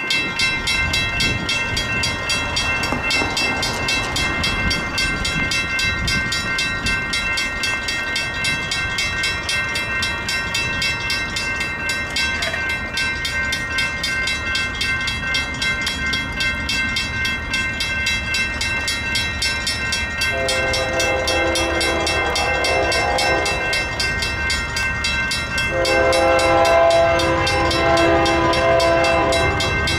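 Railroad crossing bell ringing rapidly and without a break while the crossing signals are active. About twenty seconds in, an approaching train's horn sounds two long blasts, and the second is still going at the end.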